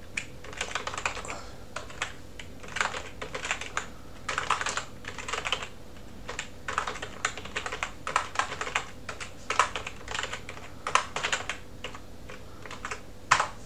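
Typing on a computer keyboard: quick bursts of keystrokes with short pauses between them, and one louder single keystroke near the end.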